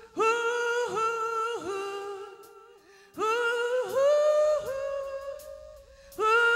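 A woman singing unaccompanied into a microphone: three drawn-out 'who' phrases a few seconds apart, each a held note that dips briefly in pitch, the middle one climbing a step higher.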